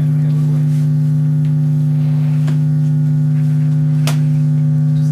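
Loud, steady low electronic drone tone that holds one pitch, with a few faint clicks and one sharp click about four seconds in.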